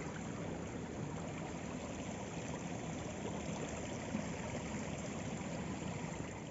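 Steady, even rushing of running water, unbroken and without distinct events.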